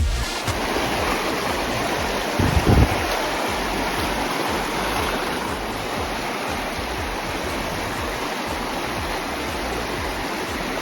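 Virgin River water rushing steadily, a constant even noise, with a brief low thump about two and a half seconds in.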